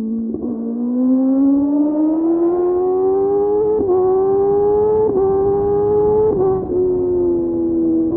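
Kawasaki Ninja ZX-10R's inline-four engine accelerating hard: the pitch climbs steadily, dipping briefly three times about a second apart as it shifts up through the gears, then eases back and holds a steady note near the end.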